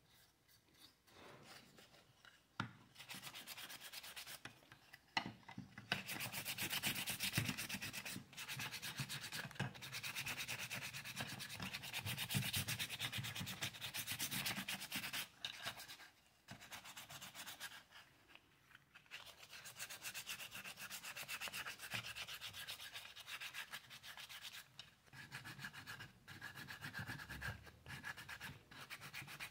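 Hand sanding of a wooden statue with sandpaper: rapid back-and-forth rubbing strokes in runs, broken by short pauses, smoothing the surface before it is painted.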